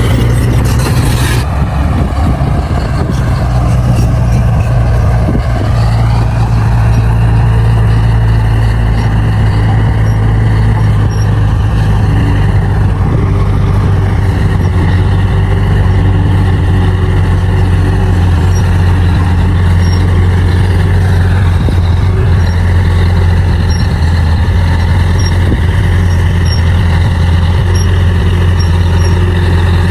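Crawler bulldozer's diesel engine running steadily while working, its pitch shifting a few times as the load changes.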